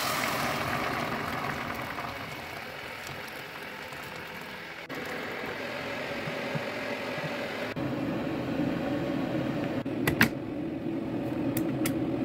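Steady hiss and hum of pots cooking on a stove: a steaming pot of chickpeas just covered with boiled water, then a simmering tomato stew, in short cuts. About ten seconds in there is a sharp click, and two lighter clicks follow near the end as the pressure cooker's lid is handled.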